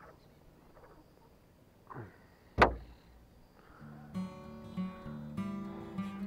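A single sharp knock with a low thump about two and a half seconds in, then acoustic guitar music strumming in about a second later and carrying on.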